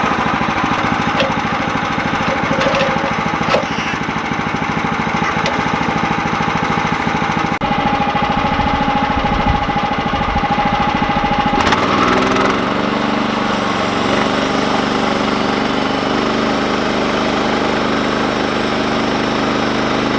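Woodland Mills HM130 Max portable bandsaw mill running, its small gas engine working hard through a cut. About twelve seconds in, the sound drops to a steadier, even engine note, like the engine easing off toward idle.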